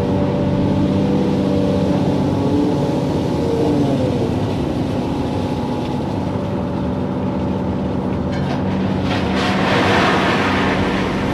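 Hydraulic excavator's diesel engine running under working load, its pitch dipping briefly about three to four seconds in. Near the end a burst of rattling, rushing noise rises over the engine.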